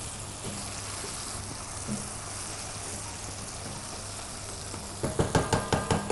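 Food sizzling steadily as it fries in a pot. About five seconds in, a quick run of clatters and clinks as the slotted spoon stirring it knocks against the pot.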